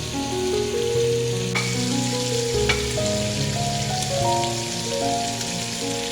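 Soft background music of held notes that change slowly in pitch, over a steady hiss. Two light clicks come about one and a half and two and a half seconds in.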